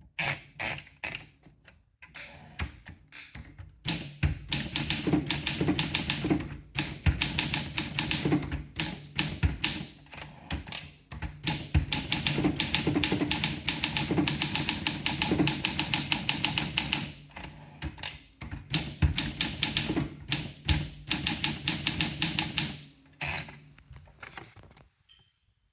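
Olympia SM2 portable manual typewriter being typed on: quick runs of key strikes clacking against the platen, broken by a few short pauses.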